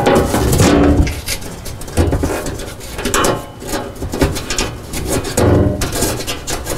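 A thin metal catalytic-converter shield plate being shifted by hand against the car's underbody: irregular scraping and rubbing with scattered knocks and clicks.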